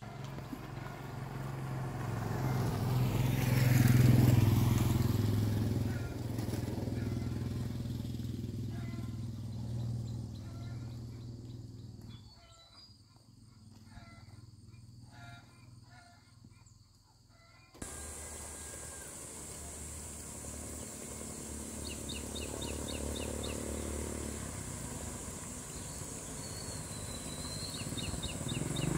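Motorcycle engine running, swelling to its loudest as it passes close about four seconds in. After a couple of abrupt cuts, a quieter steady engine hum continues with a few short bird chirps.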